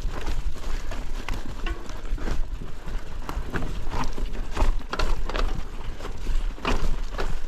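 Mountain bike rolling over a rough, leaf-covered forest trail: tyres crunching on leaves and the bike knocking and rattling over bumps, in irregular clicks and knocks over a steady low rumble.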